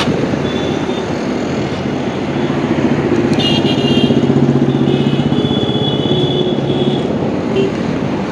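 TVS motorcycle ridden through city traffic: a steady rumble of its engine, wind and tyres. A high steady tone sounds from about three to seven seconds in.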